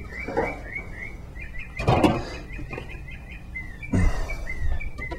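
A bird chirping over and over in the background, short high chirps about three a second. A few brief knocks or rustles of handling come about half a second, two seconds and four seconds in.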